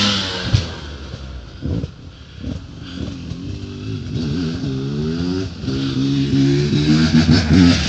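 Off-road enduro motorcycle engine revving hard as the bike jumps, then dropping away. From about three seconds in it revs up and down repeatedly, getting louder toward the end.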